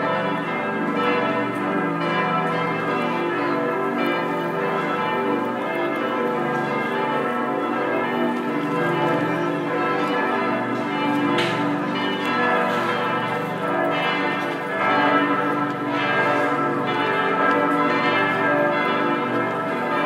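Several church bells ringing together in a full peal, a continuous clang of many overlapping tones: a test ringing of the bells as they go back into service.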